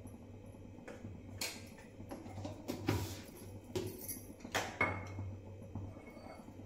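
A spoon clinking and scraping against a small steel tumbler while cornflour is stirred into water. There are a few sharp metallic clinks, one ringing briefly near the end, over a low steady hum.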